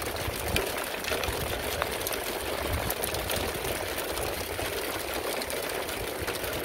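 Hail pelting down: a dense, steady rattle of many small hailstones striking the ground, a folding table and the van.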